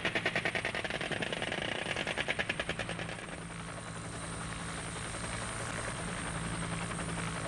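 Helicopter in flight, with a rapid, even pulsing for about the first three seconds that then settles into a steadier drone with a low hum.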